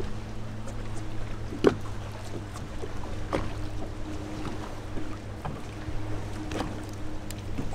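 Fishing boat's motor giving a steady low hum, with scattered light knocks and clicks; the sharpest knock comes about a second and a half in.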